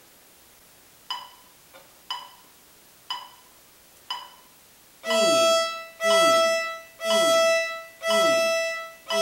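Four soft ticks a second apart, then a violin bowing the open E string in long, even notes at one pitch, one note per second.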